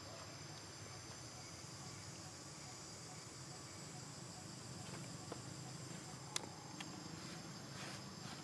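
Steady outdoor chorus of insects, a continuous high-pitched shrill drone. One sharp click stands out about six seconds in, with a couple of fainter ticks around it.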